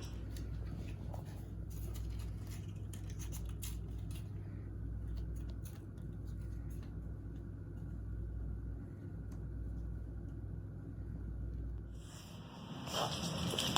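A steady low hum with scattered light taps and rustles, the taps thickest in the first few seconds; about twelve seconds in the sound changes abruptly to a brighter rustling.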